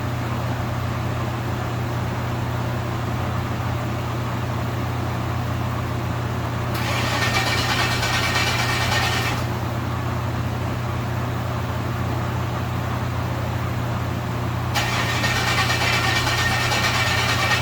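Swapped-in 6.0 LS V8 engine running at a steady speed with a constant low drone. A hiss switches on abruptly about 7 s in for a couple of seconds, and again from about 15 s.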